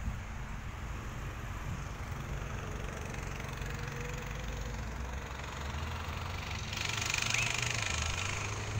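Small quad bike (ATV) engine running steadily as it is ridden over a dirt track, with a louder rushing hiss for a second or so about seven seconds in.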